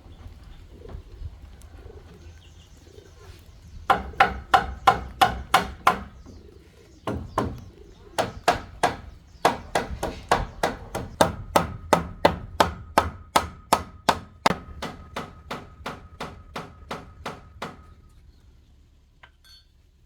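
A hand tool striking bamboo in quick, evenly spaced blows, about four a second, in a few runs separated by short pauses. A faint steady ringing tone runs under the later strikes.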